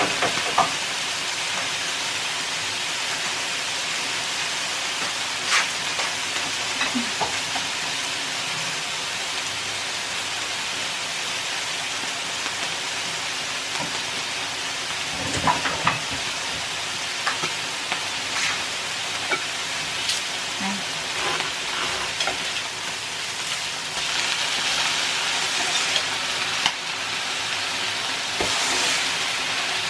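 Steak sizzling on an electric tabletop grill: a steady frying hiss that grows somewhat louder near the end, with occasional light clicks and knocks of kitchen utensils.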